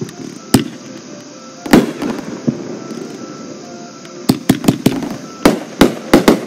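Aerial fireworks shells bursting: a sharp bang about half a second in, another a little before two seconds, then a quick run of about eight bangs in the second half.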